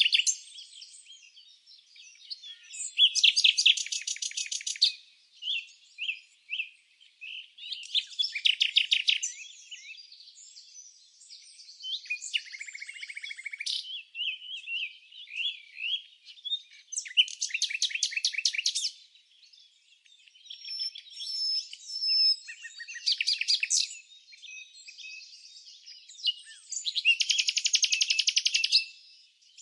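Small songbirds singing: loud, rapid trills of about two seconds repeat every four to five seconds, with short chirps and whistled notes between them.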